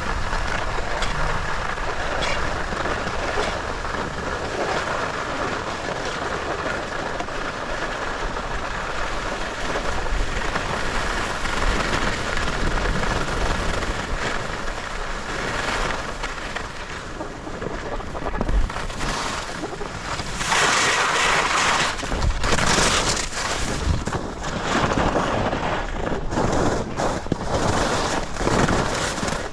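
Steady rushing of wind over the microphone together with the hiss and scrape of skis sliding on packed snow, growing louder and harsher for a couple of seconds about two-thirds of the way through.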